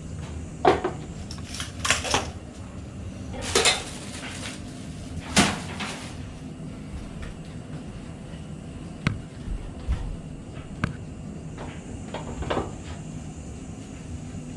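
Metal clunks, scrapes and clicks as the gas stove is shifted and fitted into place under a Nagamoto steam-iron boiler, in separate knocks rather than a steady sound, the later ones sharper and lighter.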